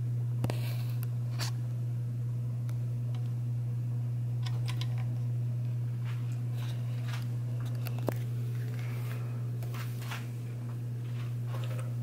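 Montgomery Ward Evergo ceiling fan running, its motor giving a steady low hum, with a few faint clicks over it.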